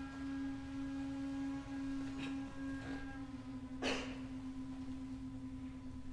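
Shakuhachi (end-blown bamboo flute) holding one long, low, pure note that steps slightly down in pitch about three seconds in, with a short sharp burst of noise just before the four-second mark.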